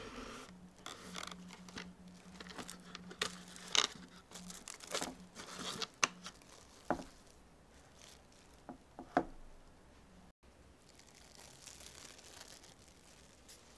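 Plastic cling film crinkling and crackling as it is handled and stretched over a loaf pan of shaped dough, in an irregular string of sharp crackles that stops about nine seconds in, leaving only a faint hiss.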